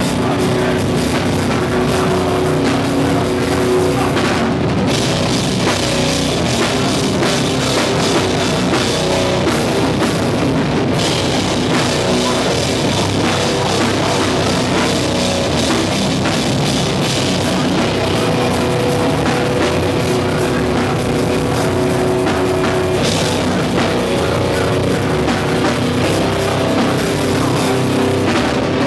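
Hardcore band playing live at full volume: distorted guitars and a pounding drum kit, without a break.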